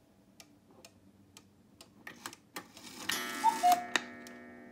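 One-day mechanical cuckoo clock ticking steadily while its minute hand is turned by hand. About three seconds in, a rattle as the strike mechanism releases, followed by a single cuckoo call of two notes, the second lower.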